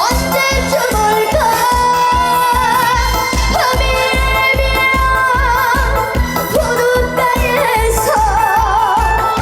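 Trot medley sung live by a female singer, her voice wavering with heavy vibrato over a backing track with a steady kick-drum beat.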